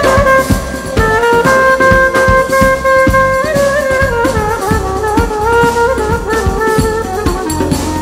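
Clarinet playing an ornamented solo melody with slides and trills, backed by a band with drum kit, during an instrumental break in a Turkish folk song.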